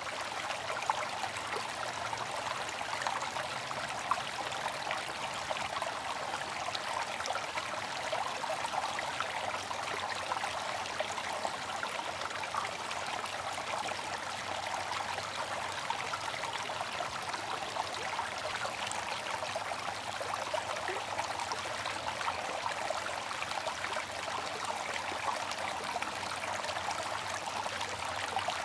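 Bamboo water fountain trickling and splashing steadily, an even patter of water with no breaks.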